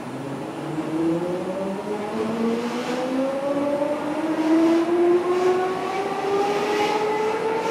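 Traction drive of a DB class 472 S-Bahn electric train whining as the train pulls away and accelerates, heard from inside the passenger car; several tones climb steadily in pitch together and grow slowly louder.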